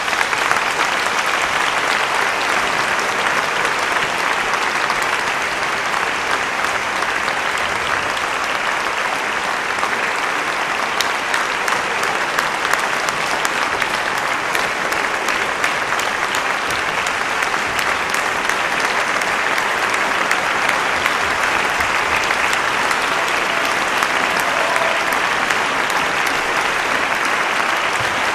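A large audience applauding in a big concert hall: dense, steady clapping that keeps on without letting up.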